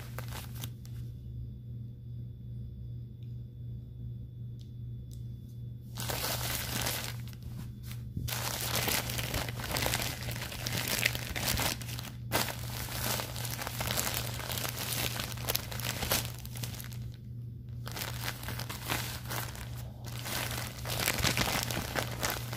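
Crinkling plastic of an adult diaper and its padding as they are handled and pressed, starting about six seconds in and going on in long stretches with short breaks. A steady low hum runs underneath.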